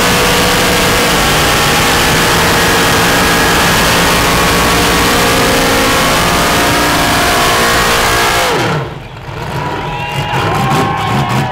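Lifted mud trucks' engines held at high revs, tires spinning on dirt, as they pull against each other hitched by a strap. About eight and a half seconds in, the revs fall away and the noise drops sharply, leaving crowd voices.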